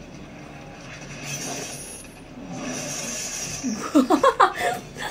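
A woman bursts into laughter near the end: a quick run of about six short, pitched ha-ha pulses lasting about a second.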